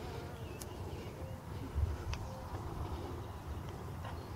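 Quiet room noise with a few faint, short squeaks from newborn basset hound puppies, and a couple of small clicks.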